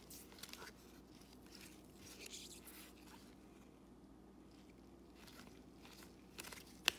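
Faint rustling and scraping of baseball trading cards being slid and flipped through in gloved hands, with a sharp click near the end.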